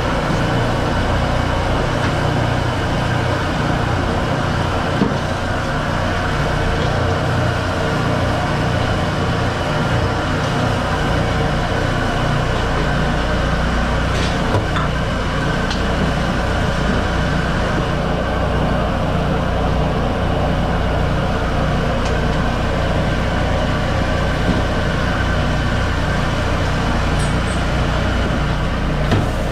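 Commercial gas wok burners running at full flame: a steady, loud rushing noise, with a few light clinks of a metal ladle against the wok.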